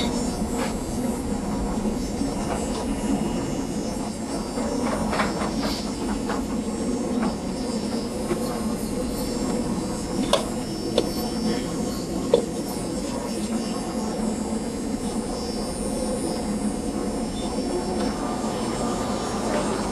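Restaurant kitchen during service: a steady drone of hood fans and equipment with scattered clinks and knocks of pans and utensils, three sharper knocks a little past halfway.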